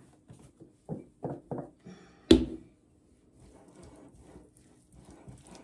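Plastic mayonnaise squeeze bottle squeezed in several short squirts, the mayonnaise hard to squeeze out, then one sharp clack about two seconds in, followed by a spoon faintly mixing the salad in a bowl.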